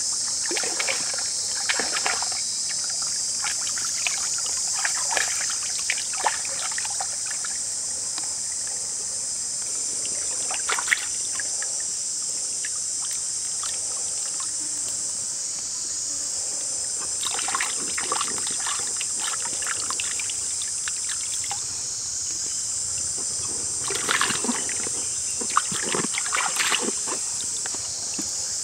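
Stream water splashing and trickling in short bursts as hands rinse a fish in it, over a steady high-pitched insect drone.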